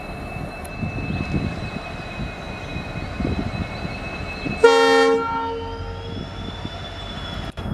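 A diesel locomotive of an Indian Railways express approaches with a steady low engine rumble. About halfway through it sounds one short, loud horn blast that fades within a second or so.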